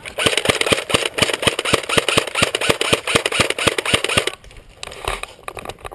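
Airsoft gun firing on full auto: a long, rapid, even string of shots that runs for about four seconds and then stops, followed by a few fainter shots near the end.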